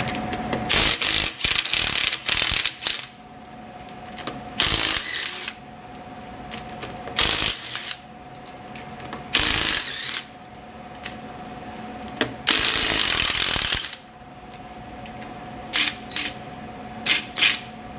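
Cordless impact wrench run on the lug nuts of a pickup truck's wheel in a series of short bursts, about ten in all. The longest is about a second and a half, about twelve and a half seconds in, and a quick cluster of short runs comes near the end.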